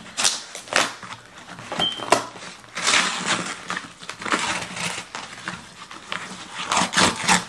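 Packing tape and cardboard on a brown shipping box being picked at and ripped open by hand: a string of irregular scratchy tearing sounds.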